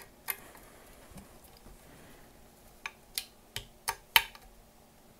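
Small metal clicks from handguard screws being run in with a 5/32 hex screwdriver. One click comes near the start, then a quick run of about five from about three seconds in.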